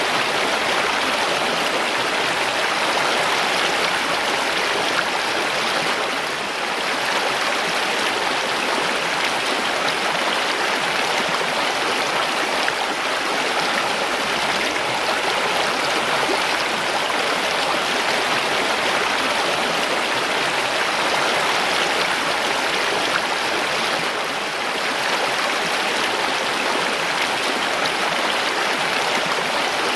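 Mountain stream running over rocks, a steady rushing and splashing.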